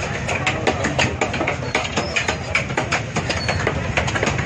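A long fish knife scraped rapidly along the skin of a large fish on a wooden block: a quick, irregular run of sharp scrapes and clicks, several a second, over a steady low background rumble.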